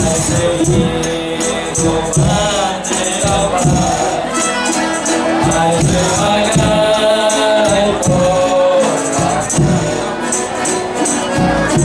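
Folia de Reis group singing in chorus, with a long held note in the middle, over a steady beat of tambourines and drum.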